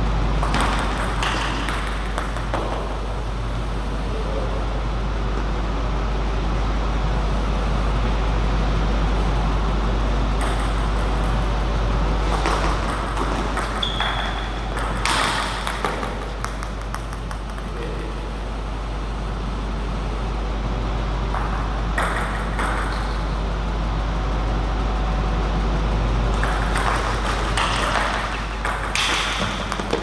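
Table tennis rallies: a celluloid-type ball clacking off rubber-faced rackets and bouncing on the table in scattered groups of hits that ring briefly in the hall, over a steady low hum.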